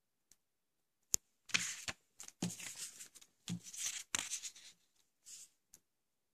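Paper rustling and sliding as a stiff paper reply card is picked up, handled and laid on the table, in several short bursts. There is a sharp click about a second in and a few soft bumps.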